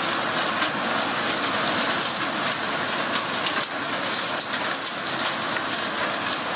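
Hailstorm downpour: a steady dense hiss of heavy falling rain, with many sharp ticks of impacts on nearby surfaces scattered through it.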